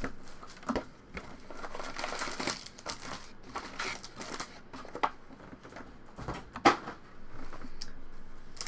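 Foil trading-card packs and box cellophane crinkling and rustling as they are handled, pulled out of the cardboard box and stacked, with a few sharp taps, the loudest about two-thirds of the way through.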